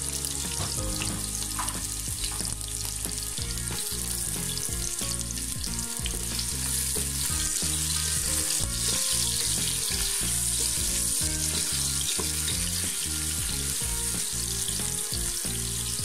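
Sliced onions sizzling as they fry in hot oil in a pan, with a steady crackling hiss, stirred with a wooden spatula partway through.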